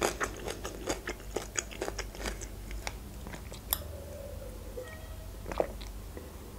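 Chewing a mouthful of sushi roll, with many small wet mouth clicks for the first three seconds or so, then sips and a swallow from a glass of water.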